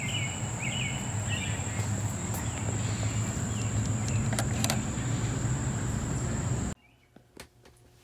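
Outdoor ambience: a steady high-pitched insect trill over a low steady rumble, with a few short chirps in the first second and a half. It breaks off suddenly about seven seconds in, leaving a quiet room.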